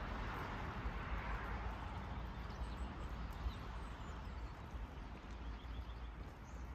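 Outdoor ambience: a steady low rumble under a soft hiss, with a few faint bird chirps near the middle.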